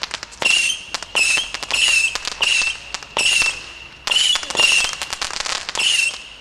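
Extra FX Missile Assault 150-shot missile cake firing a rapid volley of whistling surface-to-air missiles, about one and a half a second, each a short high whistle with a rush of crackling.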